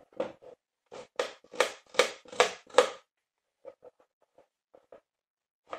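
Kitchen knife slicing a red onion on a cutting board: a run of quick knocks, about two to three a second, strong for the first three seconds, then a few softer taps.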